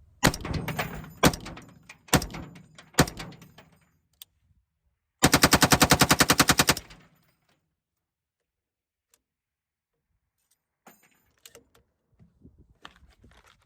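Lima6 belt-fed AR-15 upper firing Wolf 62-grain rounds: several single shots, then a rapid automatic burst of about twenty rounds lasting about a second and a half. The belt feeds and fires without a stoppage. A few faint clicks come near the end.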